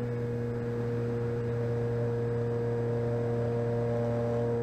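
The E-flite Cessna 150 RC plane's electric motor and propeller running steadily in flight, a steady hum with a noise of rushing air, heard close up from on board.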